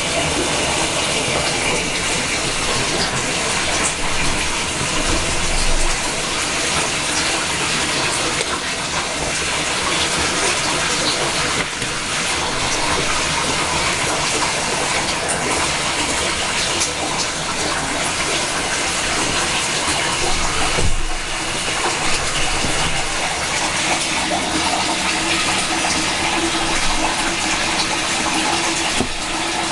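A steady rushing noise with faint scattered clicks, dipping briefly about two-thirds of the way through.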